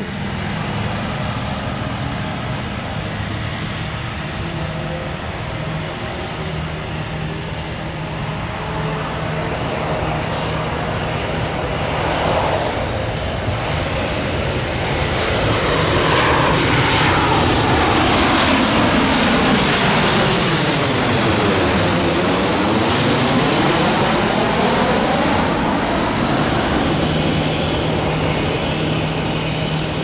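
Southwest Boeing 737 jet on final approach, engine noise building as it nears and passing low overhead. It is loudest about 18 to 20 seconds in, with a falling-then-rising swoosh as it goes over, then slowly fades.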